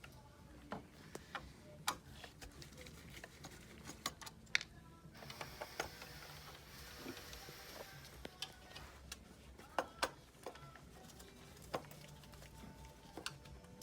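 Small, irregular clicks and taps of screws being backed out and handled on a Cadillac CUE touch screen unit, with a soft hiss for a few seconds in the middle and a faint low hum underneath.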